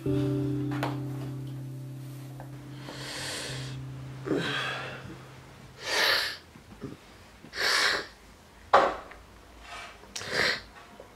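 A young man crying quietly: about six sharp, shaky breaths and sniffs, one every second and a half to two seconds. A held low musical note fades out during the first few seconds.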